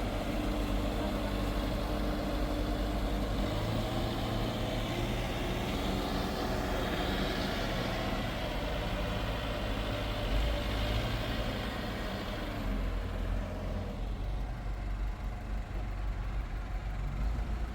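A vehicle engine running steadily, its pitch drifting slowly up and down.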